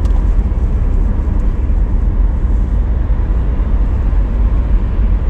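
A car driving along at a steady speed, heard from inside the cabin as a steady low rumble of road and engine noise.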